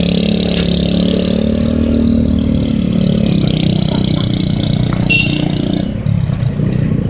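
Vehicle engine running steadily at low road speed, its hum rising slightly about two seconds in and easing off again, over road and wind noise.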